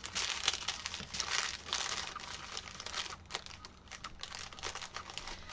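Small clear plastic bags of diamond-painting drills crinkling and rustling in irregular bursts as hands shuffle through them.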